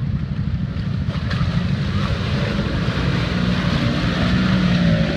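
Polaris RZR side-by-side's engine running hard under load as it churns through deep mud and water, with a rushing spray of mud and water from the tyres; it grows louder toward the end.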